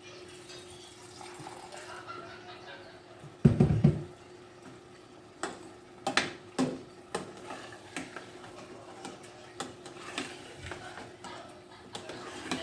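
Spoon stirring and scraping in a cooking pot, knocking against its sides several times, over a steady hum. A loud heavy thump about three and a half seconds in.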